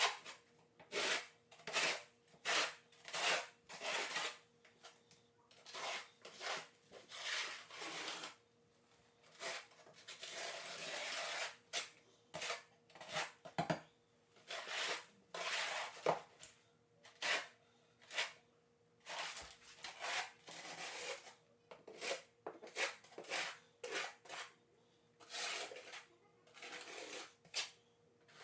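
Trowel scraping thinset mortar across a plywood subfloor in short strokes, one or two a second, with a longer continuous scrape about ten seconds in. The flat side of the trowel is keying the mortar in flat.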